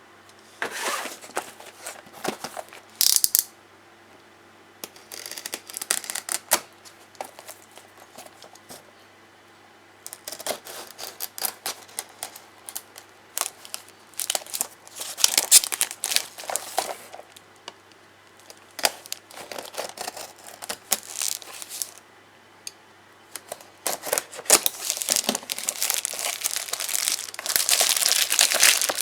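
Plastic packaging of a Mini 4WD kit being handled, crinkling and tearing in irregular bursts with short pauses, becoming more continuous near the end.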